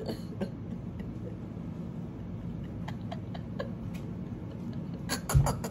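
Hands handling a wig and elastic band close to the microphone: scattered faint clicks and taps over a steady low hum, with a quick cluster of taps and a dull thump near the end.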